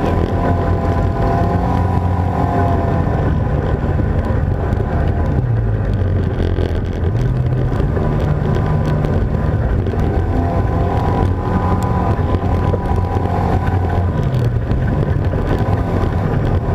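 ATV engine running under load on a dirt trail. Its pitch rises and falls several times as the throttle is opened and eased off.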